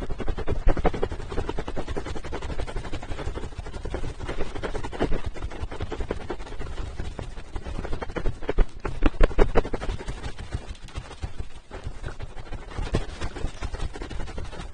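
Wet, crackling ASMR sounds worked right against the microphone, a dense run of rapid sticky clicks with rubbing rumble on the mic, swelling louder a few times.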